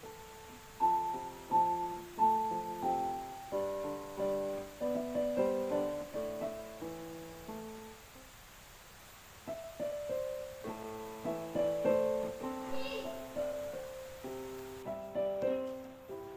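Background music: a piano playing a melody of struck notes over chords, with a short pause about halfway through.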